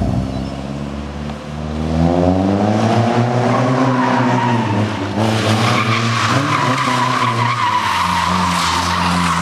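Nissan 240SX engine revving hard while the car drifts on wet asphalt, with tyres squealing. The engine pitch climbs for a couple of seconds, drops briefly about five seconds in, then holds high. A steady tyre squeal starts about three and a half seconds in.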